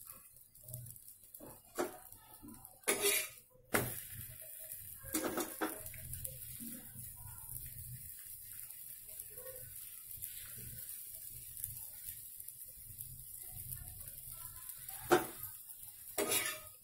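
Kitchen utensil clatter: a spatula knocking and scraping on a flat iron tawa as a paratha is turned over, a handful of sharp clinks with the loudest about three seconds in and again near the end.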